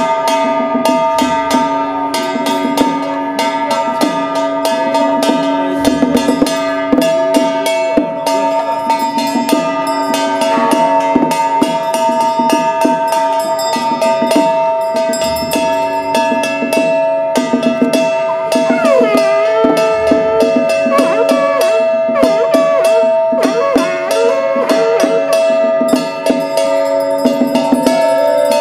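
Taoist ritual brass hand bell shaken rapidly and without pause, its clapper striking many times a second and its ringing tones held steady. A brief wavering pitched sound comes in about two-thirds of the way through.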